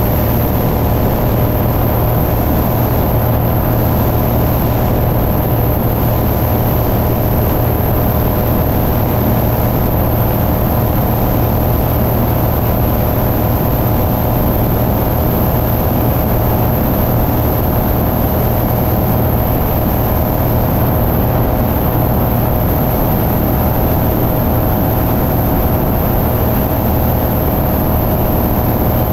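Van's RV-9A light aircraft in cruise flight: a steady drone from its piston engine and propeller, with wind rushing over the microphone, heard from outside on the wing.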